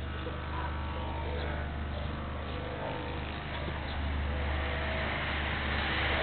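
A car driving past on the road, its tyre and engine noise growing louder over the last two seconds as it approaches.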